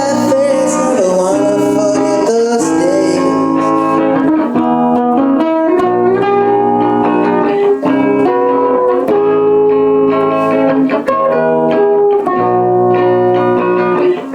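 Background music: an instrumental guitar passage with notes sliding from one pitch to the next.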